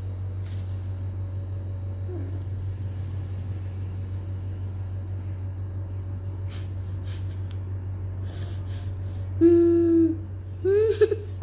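A steady low hum, with a few faint clicks as a glue stick is twisted and handled. Near the end a child's voice gives a short held sound, then laughs.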